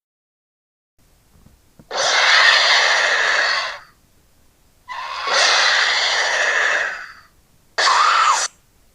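Creature sound effects for the carakiller, a fictional giant flightless predatory bird: two long, harsh, hissing calls of about two seconds each, then a shorter call near the end with a brief rise and fall in pitch.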